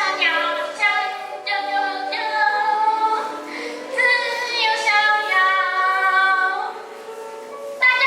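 Singing: high voices carrying a melody in long held notes, with no low instrument heard beneath them.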